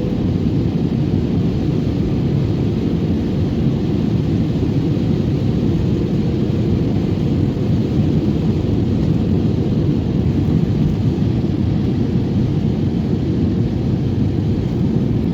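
Steady airliner cabin noise: the low drone of the engines and airflow heard from inside the passenger cabin.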